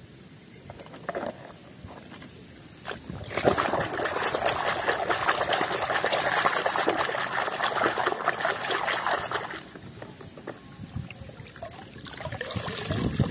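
A hand swishing and scrubbing a toy in a basin of water: water sloshing and splashing, starting about three seconds in and lasting about six seconds. Then fainter water dripping and trickling back into the basin as the toy is lifted out.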